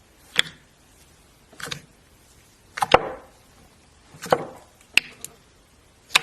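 Slime being pressed and squeezed by hand, giving a series of sharp crackling pops, about one a second.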